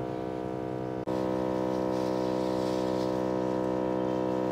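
Garden sprayer's motor pump humming steadily at one pitch, with a brief break about a second in.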